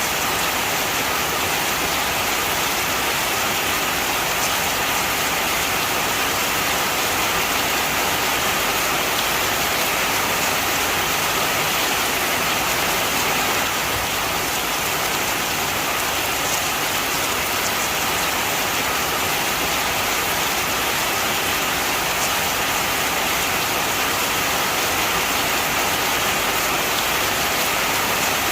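Heavy rain falling steadily and evenly, a constant hiss of rain on surfaces.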